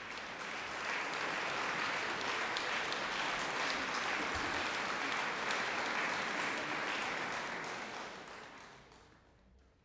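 Concert-hall audience applauding, building in the first second and dying away over the last two seconds.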